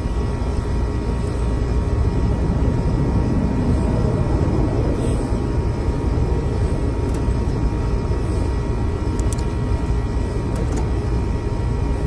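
Steady low outdoor rumble with a faint constant hum, with a few faint clicks near the end.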